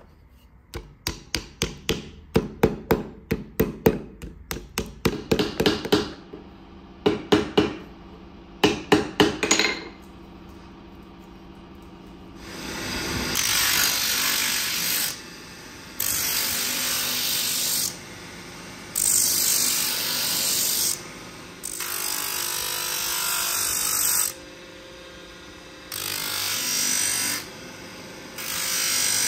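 A hammer strikes steel pins set through a knife's handle scales on an anvil: quick runs of ringing blows, then a pair and a triple. From about halfway an electric motor runs steadily with a sanding disc on its shaft, hissing in repeated passes of about two seconds as the knife handle is pressed against it and sanded.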